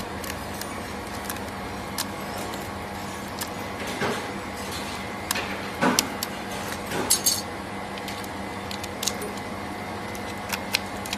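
Scattered small clicks and short scrapes of pry tools working at a phone screen's glass and LCD, over a steady machine hum.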